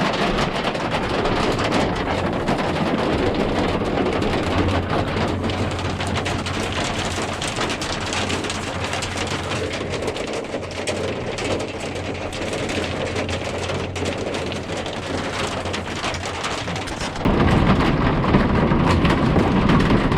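Hailstones pelting down in a dense, steady clatter of countless small impacts. About three seconds before the end the sound jumps abruptly louder and fuller.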